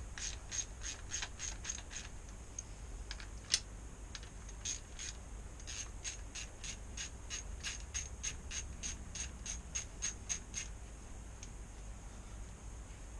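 Small socket ratchet clicking steadily, about three clicks a second, as 10 mm brake caliper bolts are wound out, with one sharper click about three and a half seconds in; the clicking stops about ten and a half seconds in.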